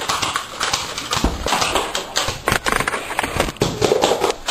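Rapid, irregular clattering of sharp clicks and knocks.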